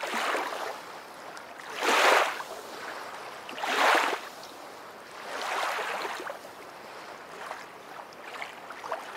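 Water washing in repeated surges, about one every two seconds, the loudest two about two and four seconds in.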